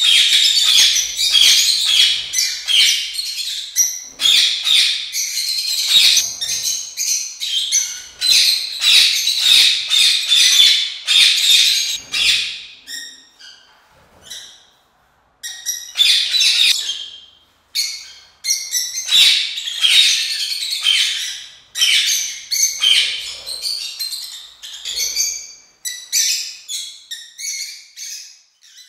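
A flock of peach-faced lovebirds chattering, a dense run of shrill chirps and squawks, with a couple of brief breaks partway through.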